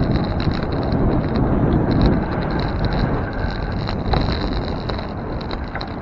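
Wind buffeting the microphone of a bicycle-mounted camera while riding, over a steady low rumble of street traffic.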